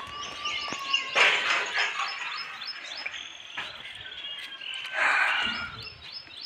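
Outdoor birdsong: small birds chirping repeatedly in short, high notes. Two louder bursts of noise come about a second in and again about five seconds in.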